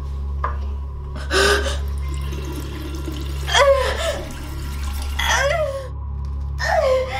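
A woman gasping and groaning in pain, four strained cries about a second and a half apart, over water running from a sink tap and a steady low drone.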